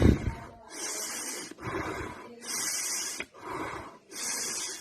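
A woman breathing deeply in through the nose and out through the mouth for steam inhalation, an even rhythm of about one full breath every two seconds, alternating hissy in-breaths with softer out-breaths. A short thump right at the start.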